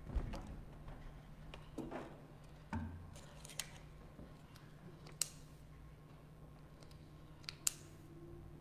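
Small handling noises at a wooden lectern: a few soft knocks and scattered sharp clicks as papers are handled and arranged, over a steady low hum.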